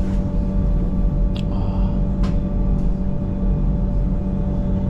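Electric mountain railway train running, heard from inside the carriage: a steady low rumble with a constant motor hum. A brief high squeal comes about a second and a half in, and a sharp click comes a little later.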